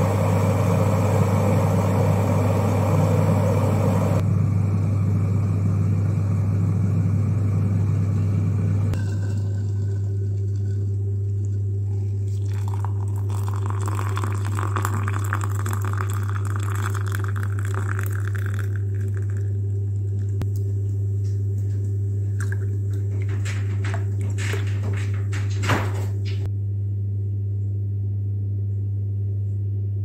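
Glass electric kettle at the boil with a rushing, bubbling hiss that eases about four seconds in and dies away about nine seconds in. Then hot water is poured from the kettle into a ceramic mug for several seconds, followed by a few light clicks and knocks. A steady low hum lies underneath.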